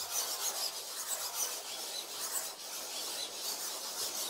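Many robotic drawing arms scribbling with pens on paper at once: a dense, continuous rasping and scratching made of many quick overlapping strokes.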